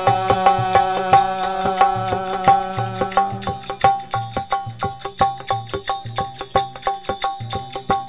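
Instrumental interlude of a Rajasthani desi veena bhajan: the veena's strings over a steady jingling beat of small hand cymbals with a drum underneath. Sustained notes carry the first few seconds and drop away about three seconds in, leaving the even rhythm.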